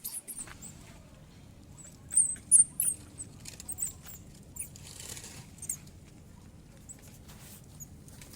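Baby monkey giving short high-pitched squeaks, a quick cluster about two to three seconds in, with a brief rustle about five seconds in and faint scattered clicks.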